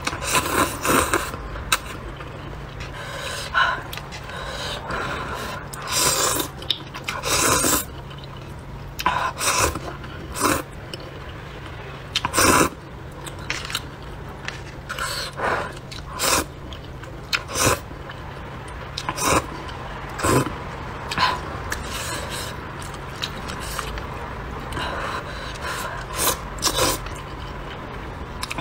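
Close-miked slurping of hot and sour sweet potato glass noodles from a paper cup, with chewing in between: a string of short, noisy slurps about every second or two, over a faint steady hum.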